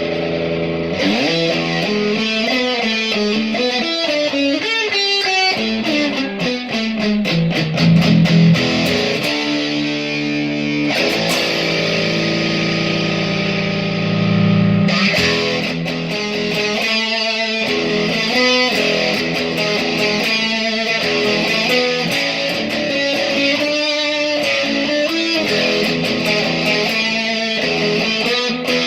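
Electric guitar playing: quick runs of notes, then held low notes for a few seconds around the middle, then steady rhythmic playing.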